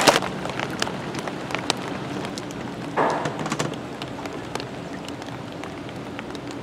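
Steady rain falling, an even hiss scattered with many small drop ticks, with a short louder noise about three seconds in.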